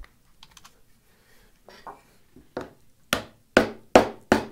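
Wooden mallet knocking a hardwood dovetail joint together to seat it: a few faint wood clicks as the pieces are set, then from about three seconds in sharp knocks about two and a half a second, four of them.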